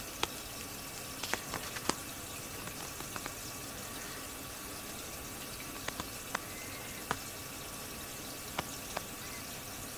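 Water running steadily in a pet turtle tank, an even trickling hiss, with scattered sharp clicks and drips.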